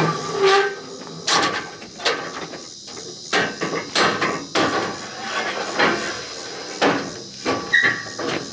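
A string of sharp knocks and clanks, about a dozen, irregularly spaced, like hard objects being struck or handled.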